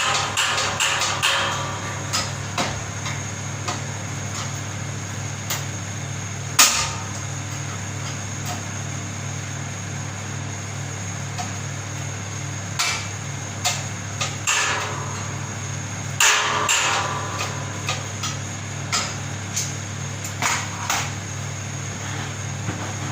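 Hand tools knocking and clanking on the metal parts of a gas oven under repair. The knocks come in scattered clusters, with one sharp strike about six and a half seconds in, over a steady low hum.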